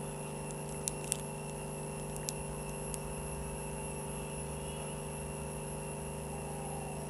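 Steady background hum made of several steady tones, with a few faint light clicks about one and three seconds in from handling the glue tube and paper petals.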